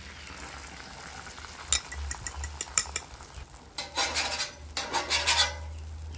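Beaten eggs sizzling as they are poured onto a hot flat-top griddle, then a metal spatula clicking and scraping against the griddle's steel surface from about two seconds in, the scraping loudest in the second half.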